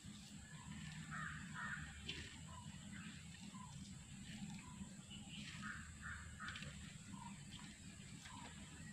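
Crows cawing faintly, a short run of harsh caws about a second in and another just past the middle, over the soft rustle of hands mixing grated coconut and leaves in a clay bowl.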